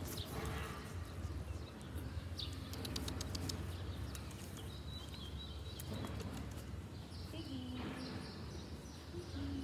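Garden birds chirping in short high calls over a steady low rumble, with a quick run of small clicks about two to four seconds in.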